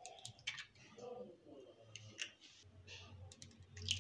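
Eggshell being pulled apart by hand over a glass bowl: scattered faint clicks and crackles of shell, with a sharper click near the end as the egg drops in.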